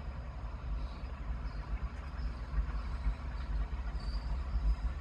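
Large bulldozer's diesel engine running with a steady low rumble as it gets ready to push.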